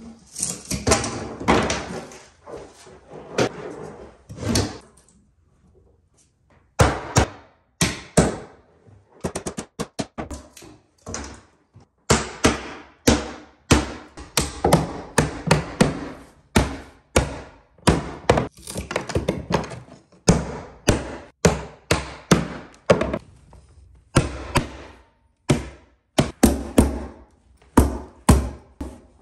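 Hammer blows nailing carpet tack strip to a plywood stair landing, then a hammer tacker stapling down carpet pad: a long run of sharp knocks, about one or two a second, with a denser stretch of knocking in the first few seconds.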